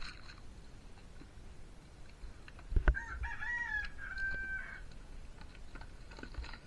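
A rooster crows once in the background, a drawn-out call of nearly two seconds starting about three seconds in. Just before it comes a single sharp knock, the loudest sound here.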